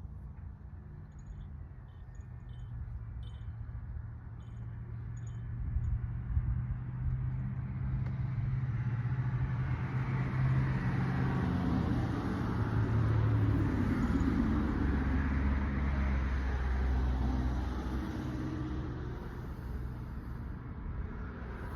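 Low engine rumble and road noise of a passing motor vehicle, growing louder over about ten seconds and easing off near the end.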